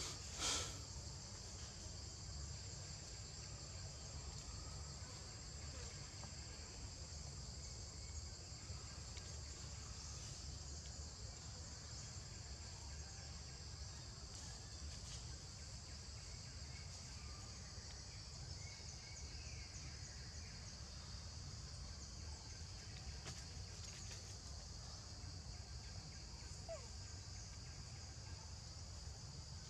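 Steady high-pitched insect chorus over a low rumble, with one brief sharp knock about half a second in.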